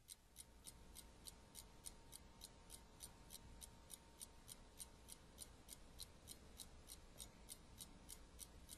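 Faint, even ticking of a clock, about three ticks a second.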